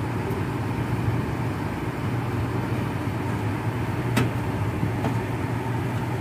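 Lennox G12 gas furnace running with its burners lit and blower fan on: a steady hum and air noise. A single sharp click about four seconds in.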